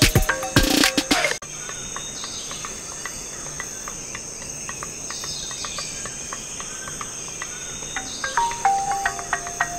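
Music with sharp plucked notes cuts off suddenly about a second and a half in, leaving a steady high-pitched insect chirring, like crickets. The plucked music comes back in near the end.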